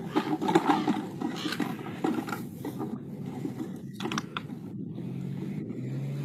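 Plastic and PVC-pipe puzzle feeders knocking, rattling and scraping as a dog noses and paws at them. Near the end a steady low motor hum comes in.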